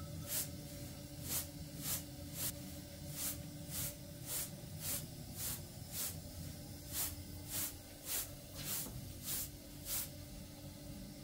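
Grain being winnowed on a round metal tray: each toss and catch gives a short hissing swish of grains, about one and a half a second in a steady rhythm. The tossing stops near the end.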